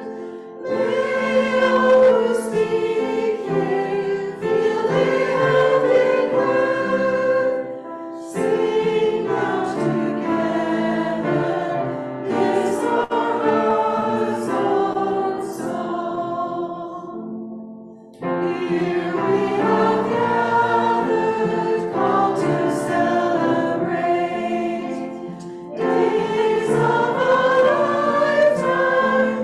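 A congregation singing a hymn together in sung phrases, with brief pauses for breath between them; a new verse begins near the end.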